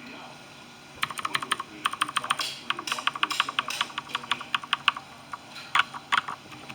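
Rapid typing on a mechanical keyboard: a fast run of key clicks starting about a second in and lasting some four seconds, then a few scattered keystrokes near the end.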